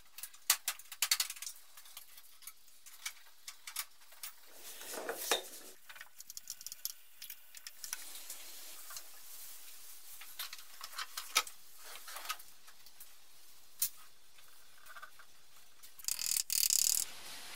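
Hand tools working in a car's engine bay: scattered clicks and clinks of a ratchet and metal parts, with a short hiss about a second long near the end.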